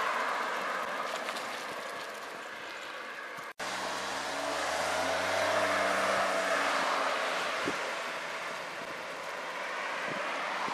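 Road vehicles passing by. The tyre roar of one fades over the first few seconds; after an abrupt break another approaches and goes past about five to six seconds in, its engine note dropping slightly in pitch as it moves away.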